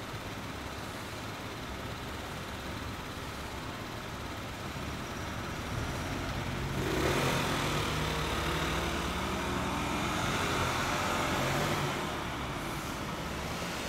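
A road vehicle passing on the street: its engine grows louder about six seconds in and falls away about twelve seconds in, over a steady low traffic hum.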